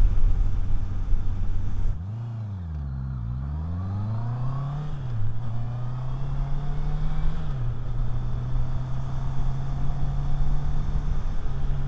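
Motorcycle engine heard through a helmet-mounted lavalier mic, with heavy wind noise for the first two seconds. The engine then drops to low revs and picks up again, accelerating through two gear changes about five and seven and a half seconds in, before settling to a steady cruise.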